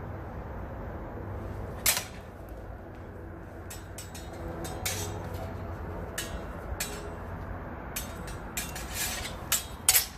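Longsword blades striking each other in sparring: sharp clacks of blade on blade, one loud strike about two seconds in, scattered lighter touches after it, and a quick flurry of loud strikes near the end.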